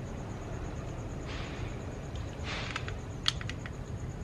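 Light handling of a plastic portable jump starter: two brief rustles, then a few small clicks as its boost button is pressed, over a low steady background hum.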